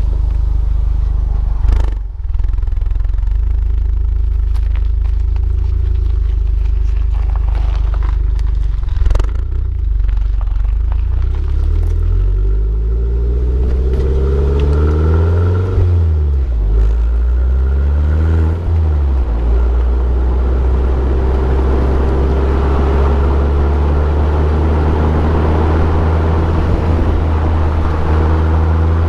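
Abarth Punto Evo's turbocharged 1.4 four-cylinder engine, all stock, running with a steady drone that rises and falls in pitch through a stretch of revving about halfway through. There are a couple of sharp clicks near the start.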